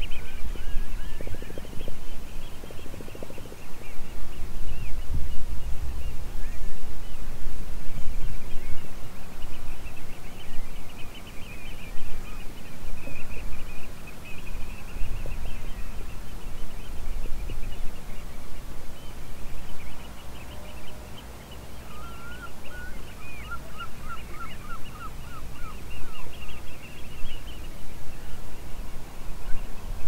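Small birds chirping and trilling throughout, with a run of quick, evenly repeated lower notes about two-thirds of the way in, over a loud, fluctuating low rumble.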